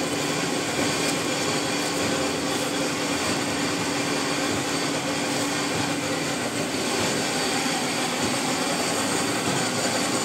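Steady drone of paper-plate factory machinery running, an even rushing noise with one constant low humming note underneath.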